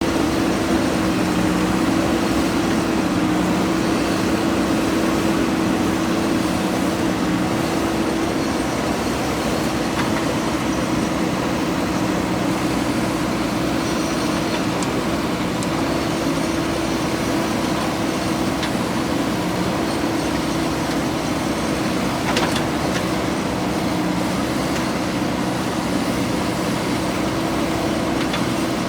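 JCB 3DX backhoe loader's diesel engine running steadily at work, a constant mechanical hum with a steady tone. There are a couple of brief clicks about a third of the way in and again about three-quarters through.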